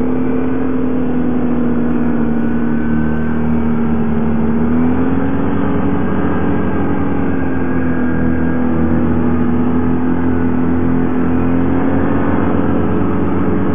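Tracked ATV running steadily at trail speed through snow, its engine note lifting slightly about a third of the way in and again near the end.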